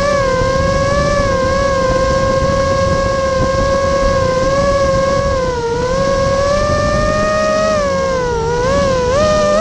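Vortex 250 Pro quadcopter's brushless motors and propellers whining in flight, with a rough rush of prop wash beneath. The pitch wavers with the throttle, dips twice in the second half and climbs again at the end.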